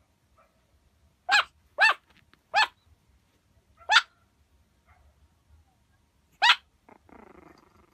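Chihuahua puppy barking: five short, high-pitched yaps, four in quick succession and then one more after a pause.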